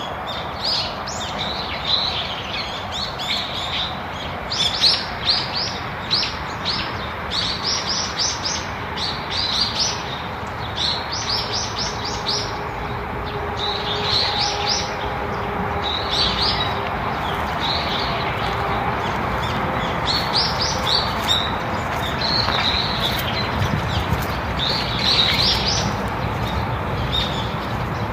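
Small songbirds chirping, with quick runs of short high notes that each drop in pitch, coming in clusters every second or two over a steady outdoor background hiss.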